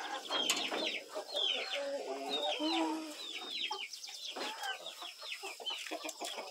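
A flock of chickens clucking, with many short high peeping calls, several a second, over lower clucks.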